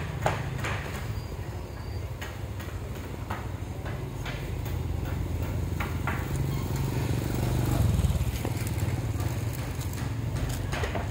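A steady low engine drone that swells about eight seconds in, with scattered light knocks and clicks over it.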